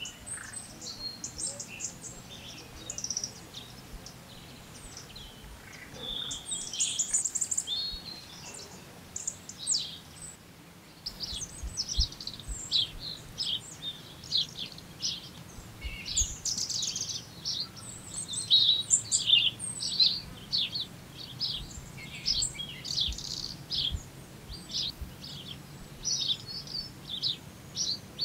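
Songbirds chirping and calling in woodland, a steady run of many short, high notes from several birds, busier in the second half.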